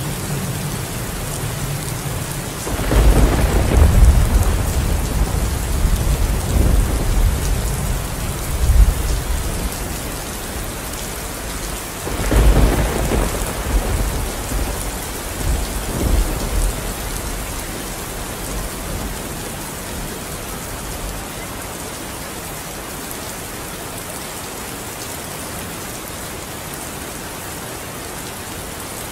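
Steady rain with two long rolls of thunder, the first starting about three seconds in and the second about twelve seconds in, each rumbling for several seconds before fading back into the rain.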